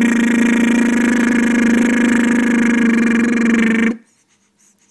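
A person's voice holding one long, loud, buzzing drone at a steady pitch, made to amuse a baby. It cuts off suddenly about four seconds in.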